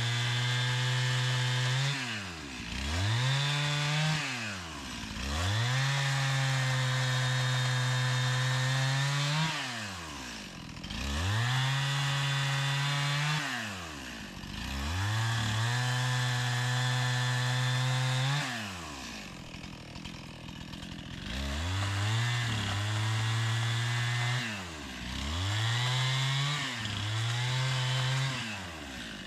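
Chainsaw held at full throttle through a series of cuts, dropping back toward idle and revving up again between them, about eight times, with a longer spell at low revs a little past the middle.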